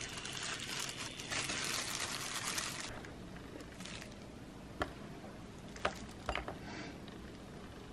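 Thin disposable plastic food gloves crinkling and rustling as hands roll rice-filled seaweed into kimbap for about three seconds. After that it is quieter, with a few light taps and clicks as cut pieces are set into a plastic container.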